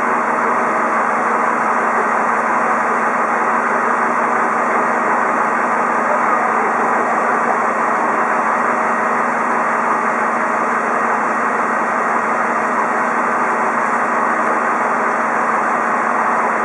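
Rosenbauer Panther airport crash tender's diesel engine idling, a steady, unchanging hum.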